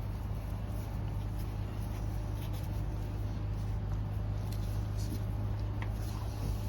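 Steady low background hum with a few faint clicks, like parts being handled.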